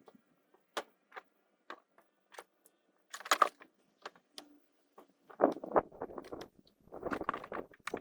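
Split firewood being handled and stacked: scattered light knocks at first, then louder clattering and scraping from about five seconds in.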